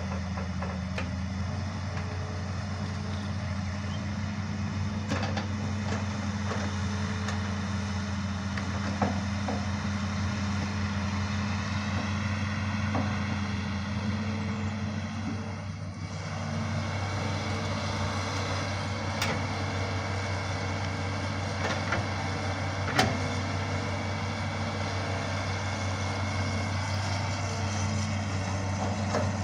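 Hitachi Zaxis 210 hydraulic excavator's diesel engine running steadily, with a few sharp knocks over it, the loudest about two-thirds of the way through.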